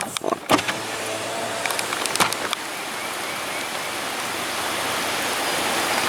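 Steady rushing hiss that grows slightly louder, with a few sharp clicks in the first half second and again about two seconds in.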